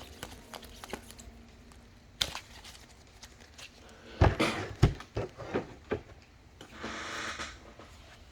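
Trading cards and foil packs being handled on a table: a sharp click, then a few knocks and taps about halfway through, the loudest of them early in that run, and a brief crinkling rustle of a pack wrapper near the end.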